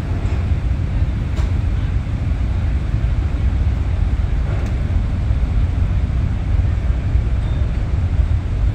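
Steady low rumble of a docked car ferry's engines.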